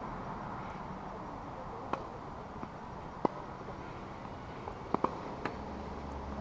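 A handful of sharp, isolated knocks from a tennis ball being struck by rackets and bouncing on a hard court, two in quick succession about five seconds in, over a steady background hiss.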